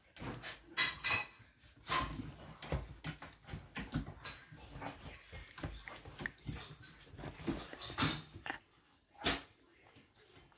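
Wheaten terrier mix barking and whining, all worked up, with many short sharp sounds and two loud barks near the end.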